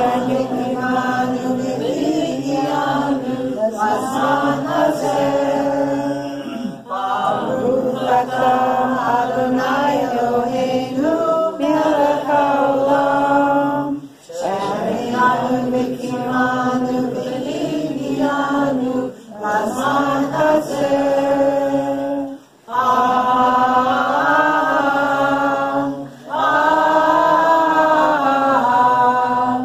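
Unaccompanied voices singing a slow, chant-like song in long phrases several seconds each, with short pauses between them.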